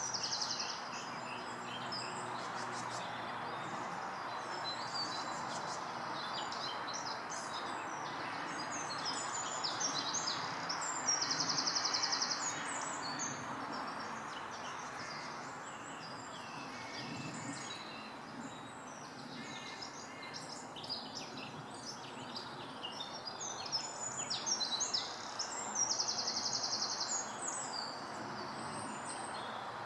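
Woodland birdsong: several small birds singing and calling in short high phrases, with a fast trill about 11 seconds in and another near the end. Under it is a steady background rush.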